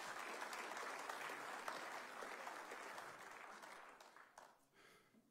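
Congregation applauding, the clapping fading out about four seconds in.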